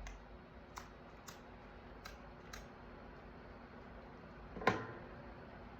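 A few light clicks over a steady low room hum, then one louder, sharper click with a brief ring near the end.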